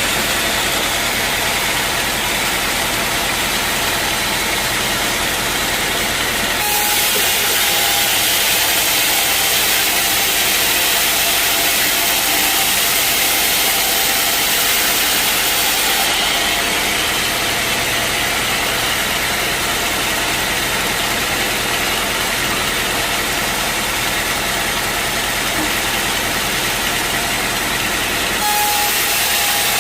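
Sawmill saw running and cutting through an acacia log: a loud, dense, steady machine noise whose character shifts abruptly a few times.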